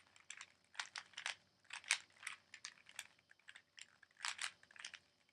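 Rubik's Cube layers being turned fast by hand: an irregular run of quick plastic clicks and clacks.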